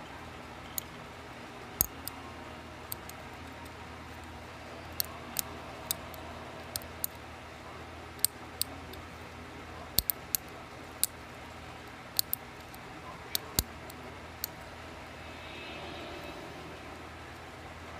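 Irregular sharp metallic clicks and taps, about twenty, from small tools against an ASSA Twin 6000 lock cylinder as its pins are being worked out of the plug.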